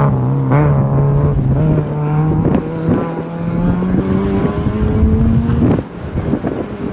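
Rally car engine pulling hard as the car accelerates away on a gravel stage. The pitch climbs between gear changes, then the sound falls away sharply near the end.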